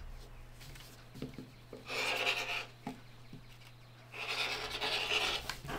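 Rotary cutter slicing through fabric on a cutting mat: two cutting strokes, a short one about two seconds in and a longer one about four seconds in.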